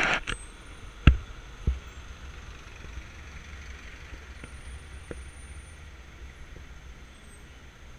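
Steady low rumble of a car driving along a road, picked up by a camera mounted outside on the car. Two sharp knocks come about a second in, half a second apart.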